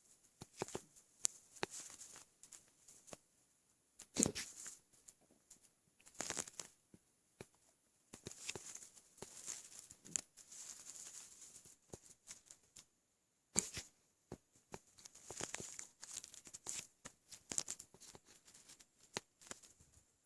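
Hiccups after drinking a gallon of milk, heard as sharp clicks and knocks, the strongest about four seconds in and another about thirteen and a half seconds in, with crackly rustling between them.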